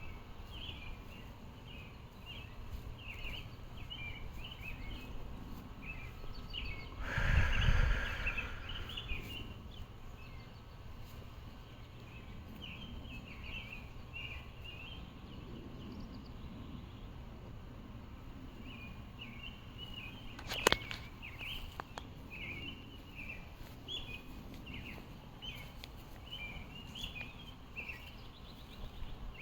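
Small birds chirping over and over in short calls, over a low outdoor background hum. About seven seconds in there is a loud burst of noise lasting about a second, and about two-thirds of the way through one sharp click.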